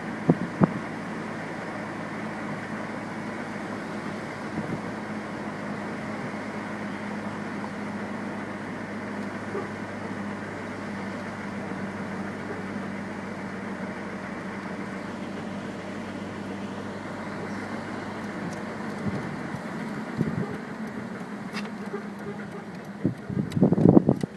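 Steady road noise and a low engine hum from a car driving, heard from inside the cabin. Two sharp knocks just after the start and a quick run of louder knocks near the end.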